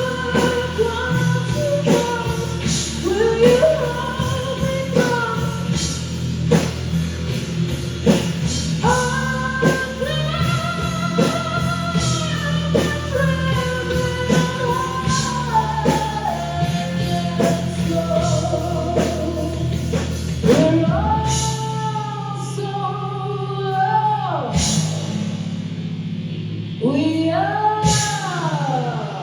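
Live rock band playing a song: a singer holding long, wavering notes over bass, guitar and drums. About two-thirds of the way through, the deep bass and most of the drumming drop away, leaving the voice over a held chord with a few hits.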